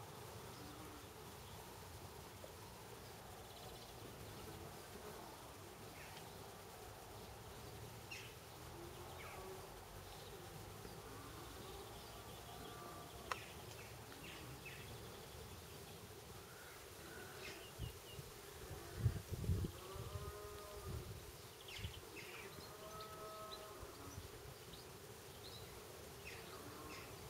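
Flying insects buzzing past, each hum rising and falling in pitch as it passes, over the faint ripple of a shallow stream, with a few short bird chirps. About two-thirds of the way through comes a cluster of low thumps, the loudest sounds here.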